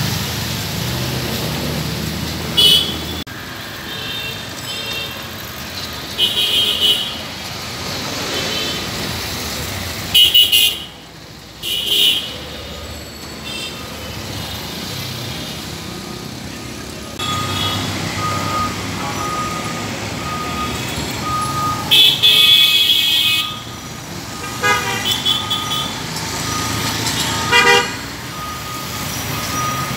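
Road traffic running steadily, with vehicle horns honking over and over in short toots and one longer blast past the middle. A faint repeated beeping joins in the second half.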